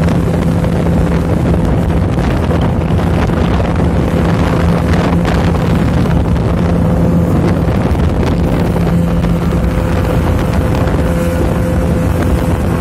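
Motorboat engine running steadily at cruising speed, a constant hum under heavy wind buffeting on the microphone and the rush of water.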